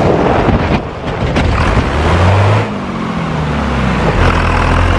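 Water spraying loudly and steadily to wash mud off a toy army truck. A low hum runs underneath and shifts in pitch around the middle.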